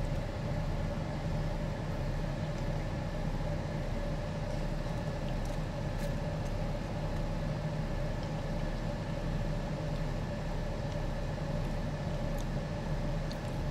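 Steady hum of an idling car heard from inside, with a few faint clicks.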